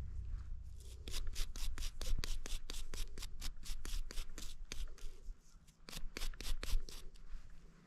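Hands working through a plug of soil, crumbling and rubbing the dirt in quick scratchy strokes, with two short lulls.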